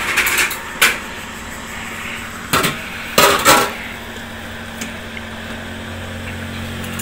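Stainless-steel ice cream tubs clanking as ice cream is scooped out: a handful of separate metal knocks and clinks of the scoop and lids against the steel canisters, the loudest pair about three and a half seconds in.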